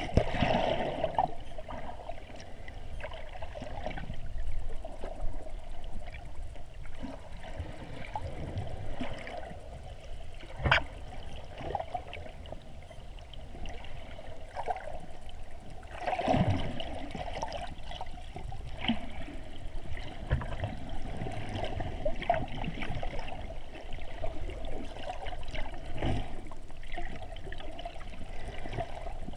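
Seawater heard through a camera held underwater: a steady, muffled sloshing wash, broken by a few short knocks.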